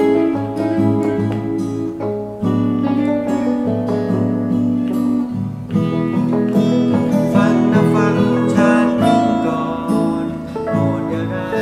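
A small band playing an instrumental passage: a strummed Fiesta FST-300 acoustic guitar, an Aria Pro II electric guitar through a Marshall MG10 10-watt practice amp, and a Casio CT-S100 keyboard, with the chords changing every second or two.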